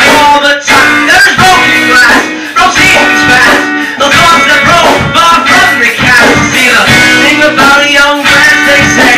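Indie rock band playing its song with loud strummed guitars and no bass, in a rough, crude recording made on an iPod nano.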